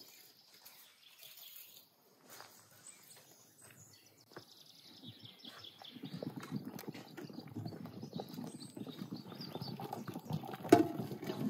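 Water bubbling at a boil in a large aluminium pot. It is faint at first and grows louder from about halfway through. A single sharp knock sounds near the end.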